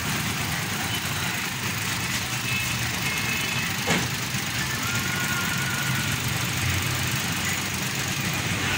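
Suzuki Wagon R Stingray's small three-cylinder petrol engine idling smoothly and steadily, freshly tuned with its blocked catalytic converter cleaned. One brief click about four seconds in.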